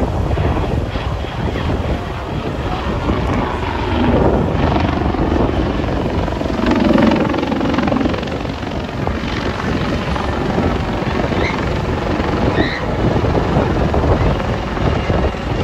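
AgustaWestland AW159 Wildcat helicopter flying overhead, its twin turboshaft engines and main rotor making a steady, rapid chop. It swells louder about four and seven seconds in as the helicopter manoeuvres.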